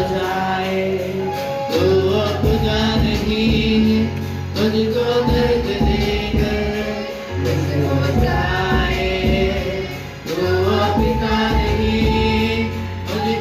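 Group of singers performing a Hindi Christian worship song into microphones, over held bass notes and a steady percussion beat.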